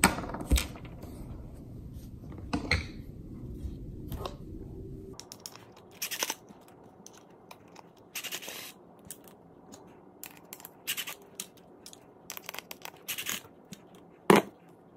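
A plastic wheel center cap, its small screws and a cordless drill being handled on a towel-covered counter: scattered clicks, scrapes and light rattles. A low hum stops suddenly about five seconds in.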